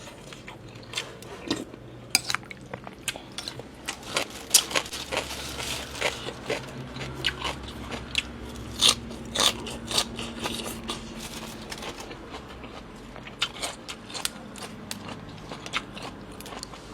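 Close-up eating sounds of a person eating pork boat noodles: chewing and crunching, with many irregular sharp clicks and smacks.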